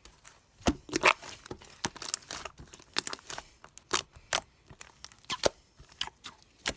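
Slime being squished and worked by hand: a run of irregular sticky clicks, pops and crackles.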